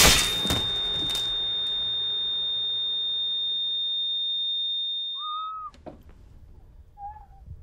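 A loud wet burst with a couple of follow-up hits as a body explodes. Then a steady high-pitched tone holds for about five and a half seconds and cuts off, followed by a short high wavering call near the end.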